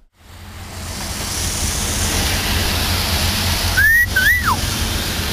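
Steady outdoor rushing noise, like wind on the microphone, fades in from a brief silence. About four seconds in comes a short two-part whistle: the first note rising, the second rising then falling.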